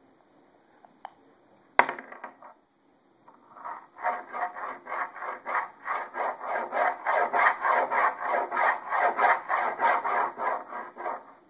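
A baby's hand rubbing back and forth on a wooden tabletop, fast and even, about four or five strokes a second, for several seconds. About two seconds in there is a single sharp knock on the wood.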